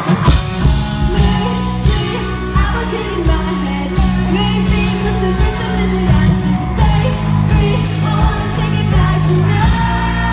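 Live pop-rock band playing with a singer's lead vocal, heavy bass and drums, heard from the audience in a large hall.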